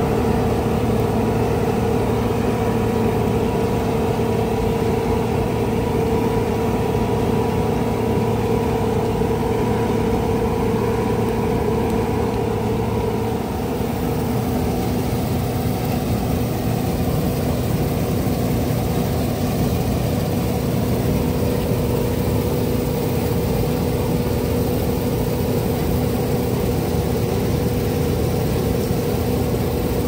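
Diesel engine of heavy harvest machinery (combine harvester or tractor at work in a wheat field) running steadily with a constant droning hum; its note shifts slightly about halfway through.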